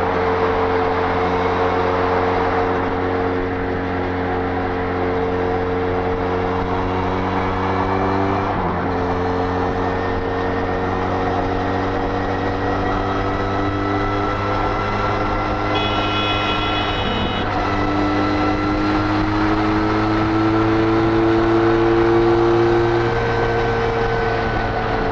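Benelli Leoncino 500's 500 cc parallel-twin engine through its stock exhaust, running at high steady revs near top speed on the highway, with wind rush over it. The engine note dips briefly twice, then creeps slowly higher before easing off near the end.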